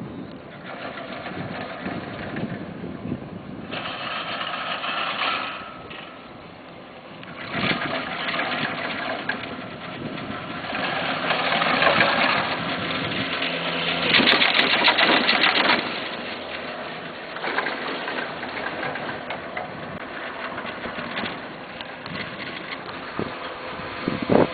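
Detachable quad chairlift (1996 Poma Italia) running, a continuous mechanical clatter with many small clicks that swells to its loudest a little past halfway through.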